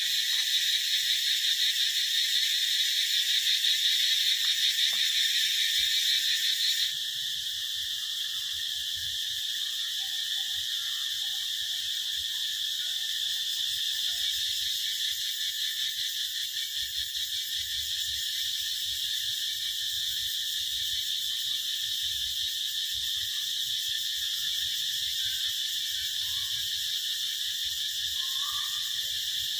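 Cicadas buzzing: a continuous, high, shrill drone. About seven seconds in it drops abruptly to a quieter, thinner buzz.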